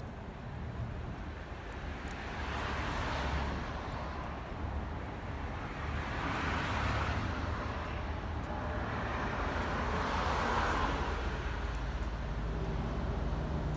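Road traffic passing: three vehicles go by one after another, each swelling up and fading away, over a steady low rumble.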